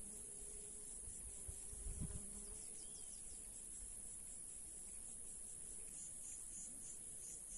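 Insects chirring steadily at a high pitch in a rapid pulsing rhythm, with wind rumbling on the microphone and a stronger gust about two seconds in.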